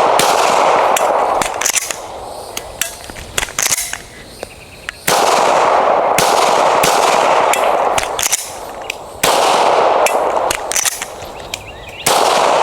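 Handgun shots fired in short strings with pauses between them, during a malfunction-clearing drill with dummy rounds mixed into the magazine. Several-second stretches of loud rushing noise come and go between the strings.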